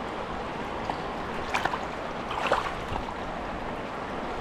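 River water running steadily, with two brief splashes about one and a half and two and a half seconds in.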